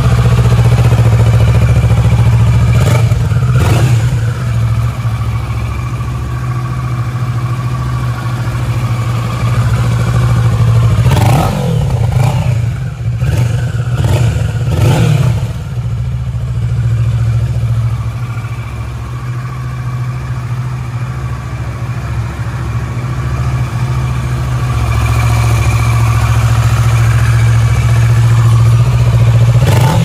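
Kawasaki Versys 650 BS6's parallel-twin engine idling steadily through its stock exhaust. The throttle is blipped a few times, briefly near the start and in a quick cluster of revs in the middle.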